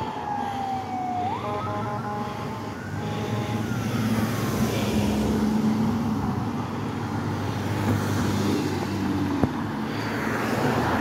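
Fire truck responding: its siren falls in pitch, jumps back up, and sounds in short repeated blasts for the first few seconds. The siren then fades under a heavy truck engine running loud and low as it passes close by.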